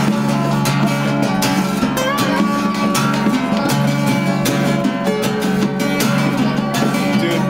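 Live amateur jam music: a small portable electronic keyboard being played, with a strummed, guitar-like plucked-string sound and a steady low sustained note underneath.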